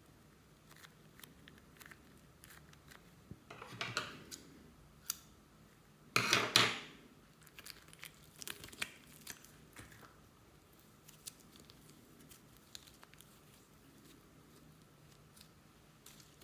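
Plastic wrapper of a clay packet crinkling and being torn open: scattered small crackles, with a louder tear about four seconds in and the loudest tear about six seconds in.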